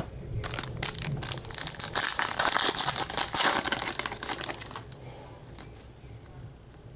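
Foil wrapper of a Panini Select trading-card pack crinkling as it is torn open and peeled back from the cards. It lasts about four and a half seconds, then gives way to faint card handling.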